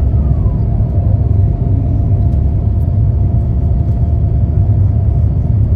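Steady low rumble of cabin noise inside an Airbus A350-900 airliner on approach, from airflow and engines, with a faint steady tone over it.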